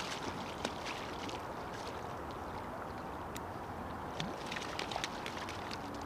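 Steady rush of river water around a wading man and the boat, with scattered small splashes and knocks.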